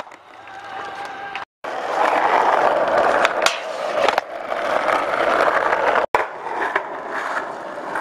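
Skateboard wheels rolling on concrete and asphalt, a steady rushing noise broken by a few sharp clacks of the board. The sound cuts out completely twice, briefly, where clips are spliced together.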